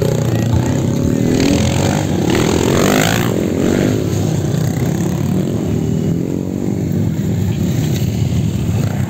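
Off-road trail motorcycle revving hard and passing by, its pitch climbing to a peak about three seconds in and then falling away, over a steady rumble of other engines.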